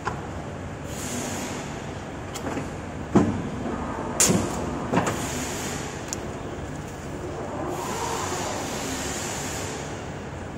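Hydraulic paper-cutting guillotine running with a steady low hum, while paper is handled on its table. About 3, 4 and 5 seconds in, a few sharp knocks stand out, the first the loudest, with stretches of high hiss in between.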